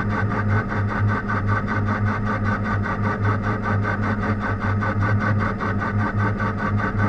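Machine tool running steadily while machining metal: a constant low hum with a rapid, even pulsing over it.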